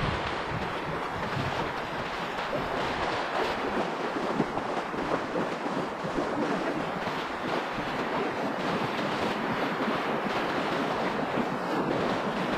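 Shallow ocean surf washing and foaming close by: a steady rushing hiss of breaking water, with wind buffeting the microphone.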